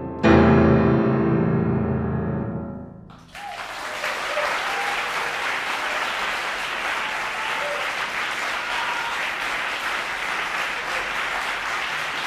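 A loud closing chord on a Steinway concert grand piano strikes about a third of a second in and rings away over roughly three seconds. An audience then breaks into applause, which goes on steadily.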